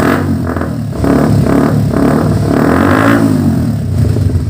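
Suzuki GSX-R150's single-cylinder engine revved through an Akrapovic M1 full-carbon full-system exhaust. It gives several quick throttle blips, each rising and falling in pitch, then a longer rev that swells and falls back toward idle about three seconds in.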